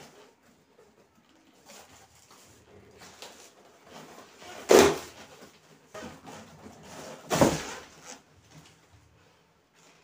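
Cardboard of a large fridge box being torn open by hand: quiet rustling and crinkling, with two loud rips about two and a half seconds apart.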